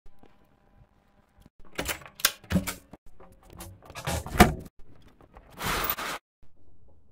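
Door and footstep noises as a person walks out: a run of knocks and clatter, the sharpest about four seconds in, then a short rushing noise about a second later.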